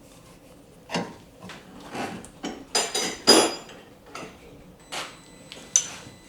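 Loose metal parts clanking and clinking as they are handled: a series of separate knocks, with the loudest ringing clangs about halfway through and another sharp clink near the end.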